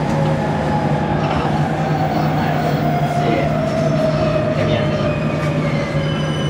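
JR Kyushu 817 series EMU heard from inside the car: its Hitachi IGBT-VVVF inverter and traction motors whine, falling slowly in pitch as the train slows, over a steady low running rumble. A higher steady tone comes in near the end.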